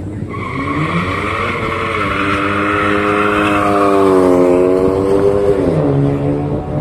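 A car's engine at full throttle on a drag-strip run: the pitch climbs, dips once at a gear change, holds high for a few seconds, then drops near the end as the car goes by.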